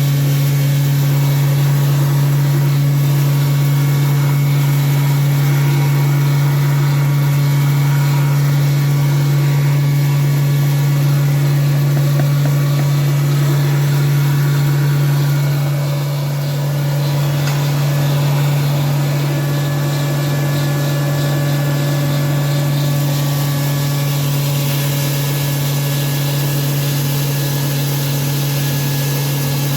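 Disk mill running steadily while grinding coarse rice bran: a loud, even machine hum with a strong low drone. The level dips briefly about halfway through, then settles slightly lower.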